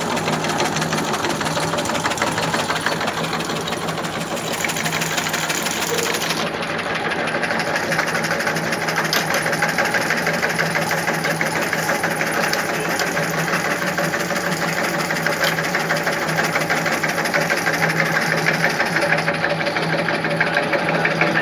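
Electric tobacco-cutting machine running steadily as it chops raw tobacco leaf: a fast, even mechanical clatter from the cutting blade over a steady motor hum.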